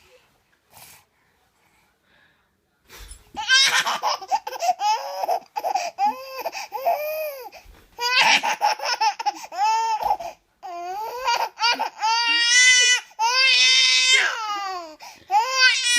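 Baby laughing: high-pitched, rising-and-falling laughs that start about three seconds in and come in several bouts with short pauses between.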